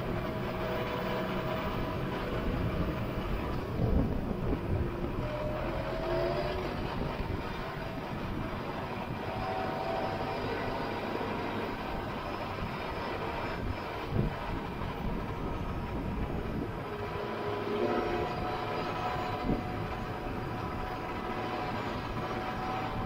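Valtra C120 tractor's diesel engine running steadily as the tractor drives across the field, with occasional knocks and rattles from the rig, heard from the back of the tractor.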